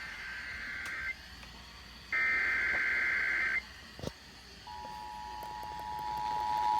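Emergency Alert System header: high, harsh buzzing data bursts, one ending about a second in and a longer one of about a second and a half starting a second later, then about five seconds in the steady two-tone EAS attention signal starts and grows louder, announcing a Required Monthly Test.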